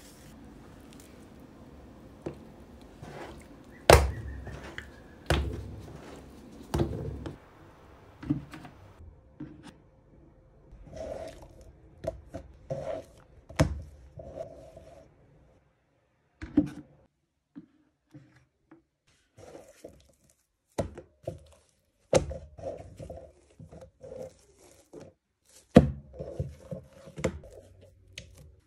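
Soft, oiled bread dough being slapped down onto an oiled worktop, a series of dull thuds several seconds apart, with softer handling noises between them as hands stretch and fold it.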